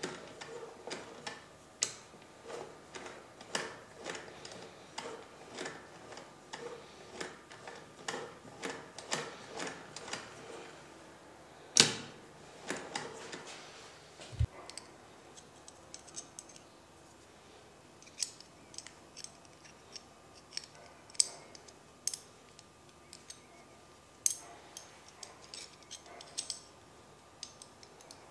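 Metal parts of an antique Singer sewing machine clicking as they are worked by hand: a regular run of clicks about two a second, one sharp louder click a little before halfway, then scattered clicks.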